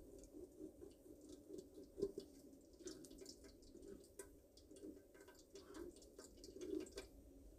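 Faint scraping and scattered light ticks of a spatula pressing blended fruit pulp through a fine metal mesh strainer, with one sharper tick about two seconds in, over a low steady hum.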